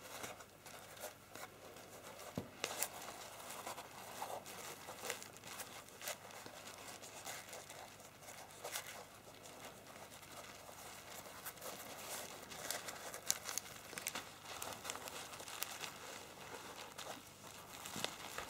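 Faint rustling and scattered soft clicks of rope being handled and worked into a hanging loop.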